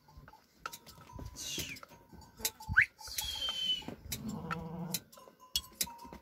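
A sheep bleats once, a wavering call about four seconds in, with scattered light clicks and a few short high whistles and chirps around it.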